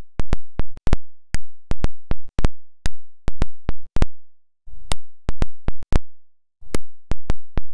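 Charter Arms Pug .357 Magnum snub-nose revolver firing five .38 Special rounds, about one and a half seconds apart. Each shot is followed by a quick run of further sharp cracks.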